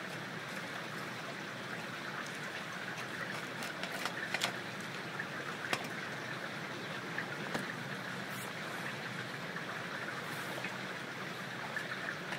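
Steady rush of running rainwater in wet woodland, with a few sharp clicks in the middle from a knife cutting and shaving small kindling sticks.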